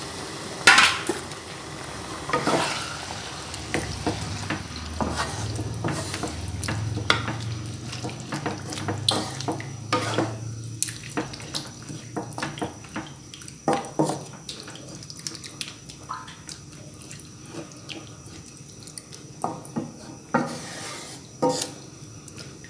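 A wooden spatula stirring curry in a stone-coated non-stick wok, with repeated knocks and scrapes against the pan. Under it the liquid sizzles, thinning out about halfway through.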